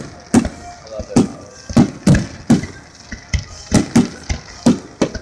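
Rapid barrage of aerial firework shells bursting: a dozen or so sharp bangs, about two to three a second, each with a short trailing echo.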